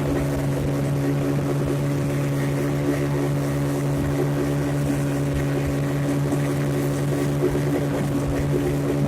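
A 40 hp outboard motor running steadily at speed on a payang fishing boat, giving an even drone that holds one pitch throughout.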